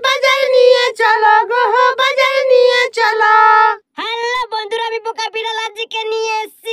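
A very high, chipmunk-like pitch-shifted cartoon voice singing in held, bending notes. After a brief break a little before the middle, it carries on in shorter, choppier phrases.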